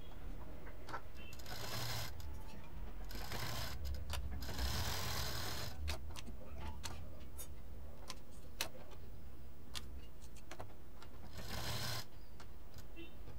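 Black domestic sewing machine stitching a fabric tassel onto a cord in a few short runs, with scattered ticks and clicks between the runs.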